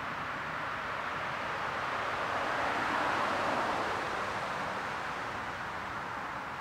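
A vehicle passing on a nearby road: its tyre and road noise swells to a peak about three seconds in, then fades away.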